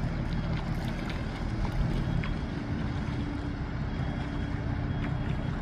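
A fishing boat's engine running with a low, steady drone; its tone shifts about two seconds in, with wind on the microphone.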